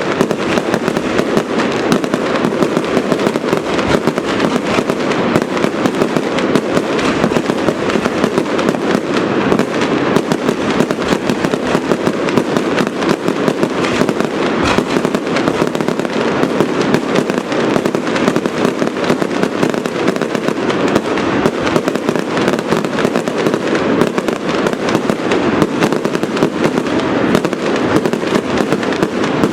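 Aerial fireworks display: a dense, continuous barrage of bangs and crackling with no let-up.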